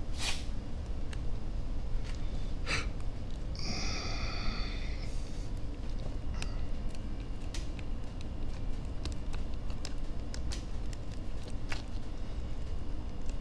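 Light clicks and taps of plastic drive-shaft parts being handled and fitted into an RC crawler's chassis, over a steady low hum. About four seconds in there is a hissing sound lasting over a second.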